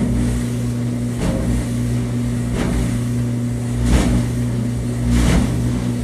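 Kenmore (Frigidaire-built) clothes dryer running empty: a steady motor hum with a knock that repeats about once every second and a half, roughly once per turn of the drum. It is the noisy-running symptom that the owner puts down, more than likely, to a worn rear drum bearing.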